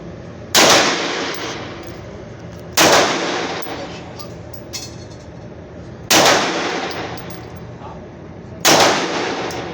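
Four pistol shots fired at a slow, uneven pace, a few seconds apart, each with a short echo trailing off.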